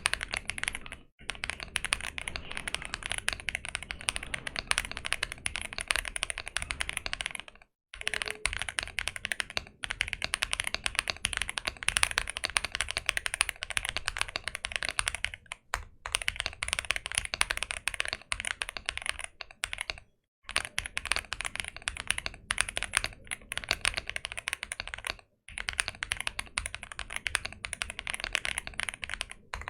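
Sugar65 aluminium gasket-mount 65% keyboard with Leobog Greywood V4 linear switches being typed on fast, in runs of dense keystrokes with short breaks about every five seconds. The board has tuned stabilizers, polyfill inside and a tape mod.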